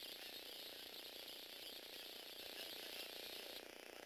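Small electric motor and plastic spur-gear train of a Lego Technic robot dog running steadily as it cranks the legs to walk; the sound eases briefly near the end.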